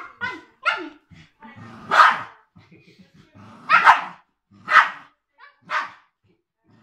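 Dogs play-barking during rough play between a Siberian husky puppy and a Cairn terrier: about six short barks, the loudest about two and four seconds in.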